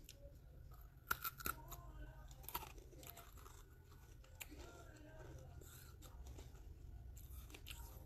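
Close-miked biting and chewing of a chunk of red brick: a few sharp crunches about a second in, then softer, quieter chewing crunches with the mouth closed.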